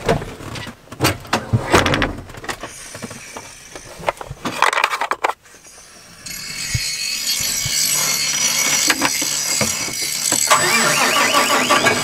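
Clicks and knocks of tractor-cab fittings being handled, such as an armrest storage lid being opened. From about six seconds in, a steady hiss and hum of the running tractor cab takes over.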